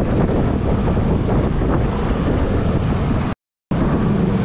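Wind buffeting the microphone of a handlebar-mounted camera on a moving Vespa S125 scooter, over the scooter's running engine and road noise in traffic. The sound drops out completely for a moment about three and a half seconds in.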